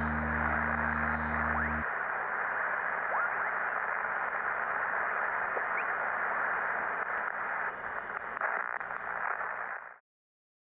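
Steady radio static hiss, with a low sustained musical chord underneath that ends about two seconds in. The hiss cuts off suddenly near the end.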